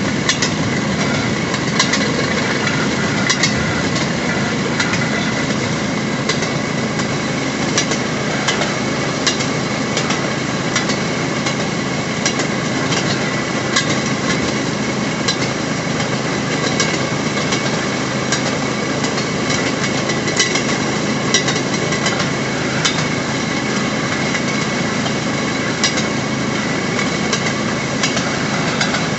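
Railroad speeder's small engine running steadily as it rolls along the track, with short sharp clicks every second or so from the wheels passing over rail joints.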